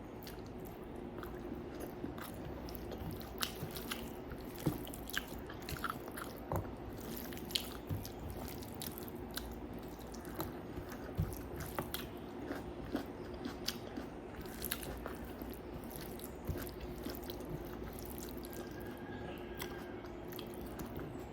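Close-miked chewing and eating, with irregular wet smacks and clicks of the mouth several times a second, over a steady low hum.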